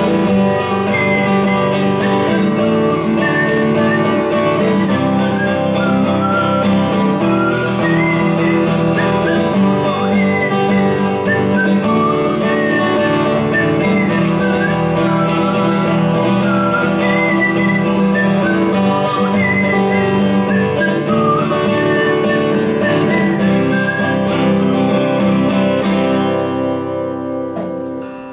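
Acoustic guitar strummed steadily through a song's closing instrumental section, with a high wavering melody line above it. The playing dies away a couple of seconds before the end.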